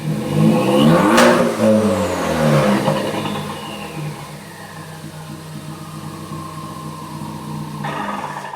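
Ford Focus ST's turbocharged four-cylinder through a loud catback exhaust, revved once. The revs climb to a peak about a second in with a sharp pop, then drop back to a steady drone while a high whine slowly falls.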